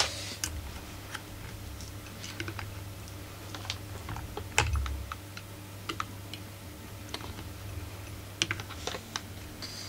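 Scattered light clicks and taps of metal tweezers against the chainsaw's carburettor mount as a stiff old gasket is picked loose, with one louder knock about halfway through.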